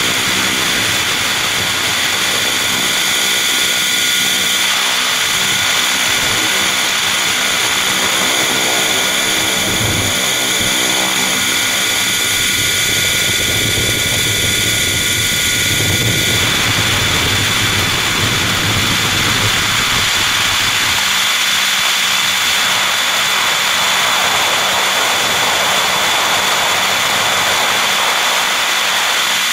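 Radio-controlled helicopter's motor and rotors heard from the camera on board: a loud, steady whine with several high steady tones, shifting in tone as it flies, with a change about sixteen seconds in.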